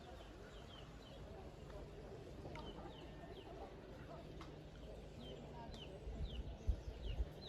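A bird calls over and over in short, high, falling chirps, several a second, against a steady low rumble. A few low thumps come near the end.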